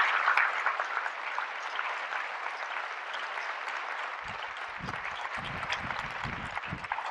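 A large audience applauding, dense clapping that slowly fades over the few seconds, with a few dull low thuds in the second half.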